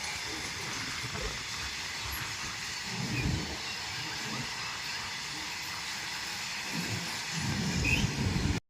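A train running: a steady rushing noise with low rumbling swells about three seconds in and again near the end, cutting off suddenly.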